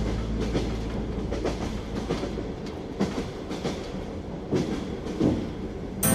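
Train wheels clacking over rail joints: an uneven run of sharp clicks and knocks over a low rumble that dies away a couple of seconds in.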